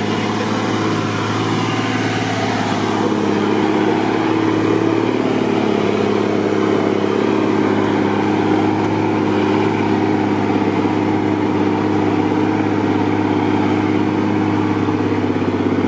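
Mercedes-Benz Unimog's diesel engine running steadily as the truck drives on, a constant even drone.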